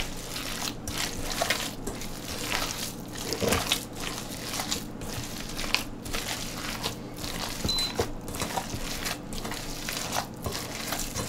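Hands squeezing and kneading a raw ground beef and pork meatball mixture in a stainless steel bowl: irregular wet squishing.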